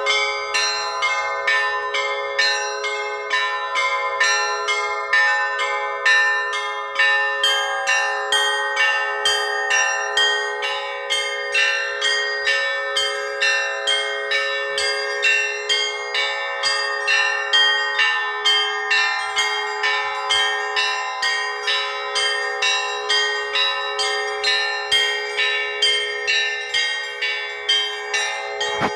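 Russian Orthodox church bells rung in a peal, several bells struck in a quick, even rhythm of several strokes a second, their tones overlapping and ringing on.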